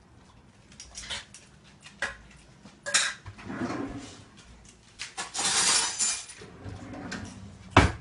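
Kitchen clatter of dishes and utensils being handled on a counter: scattered clinks and knocks, a noisy stretch lasting about a second roughly five seconds in, and a sharp loud knock just before the end.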